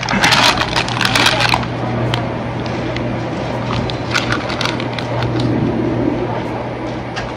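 Crackly rustling of a plastic bag handled close to the microphone for the first second and a half. After that, a steady low hum with faint voices in the background.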